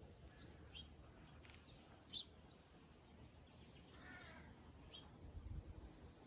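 Faint outdoor birdsong: small birds chirping here and there, and a crow cawing once about four seconds in.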